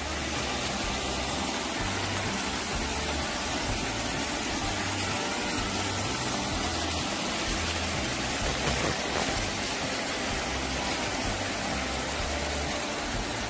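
Rain runoff pouring from drain pipes down rocks into a small check-dam pool and spilling over its stone rim: a steady rushing of water. The stream is swollen from heavy typhoon rain and the dam is overflowing.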